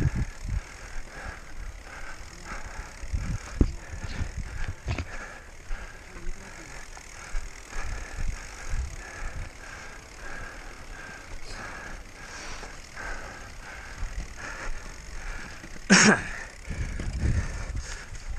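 Mountain bike descending: the freehub ratchet is clicking in a quick, even rhythm and the frame and chain are rattling over the bumps, with heavy low rumbles. A short, loud bang or knock comes about 16 seconds in.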